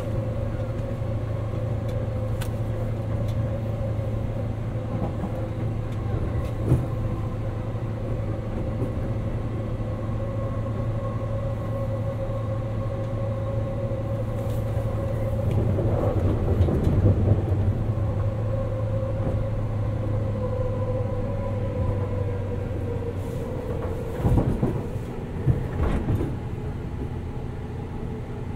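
Interior running sound of a 189-series EMU motor car at speed: the MT54 traction motors and gearing whine steadily over a low rumble, the pitch drifting slowly lower. The rumble grows louder for a few seconds about halfway, and there are a few sharp wheel clacks over rail joints.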